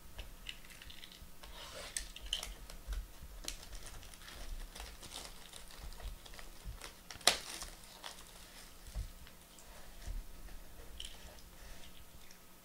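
Hands handling cardboard trading-card boxes in plastic shrink-wrap, with scattered taps, rustles and crinkles. There is one sharper knock a little past halfway, as a box is set down or bumped.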